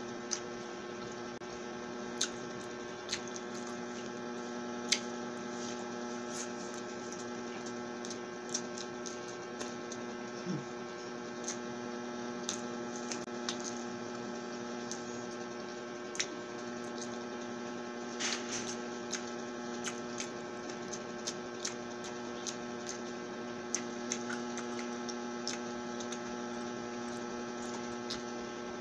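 A steady electrical hum made of several evenly spaced tones runs throughout. Over it come scattered soft clicks and smacks of hand-eating and chewing.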